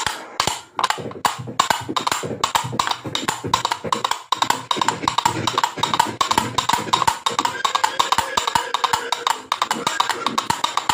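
Hand-made horse-galloping sound effect: a fast, steady run of woody clip-clop knocks in a galloping rhythm.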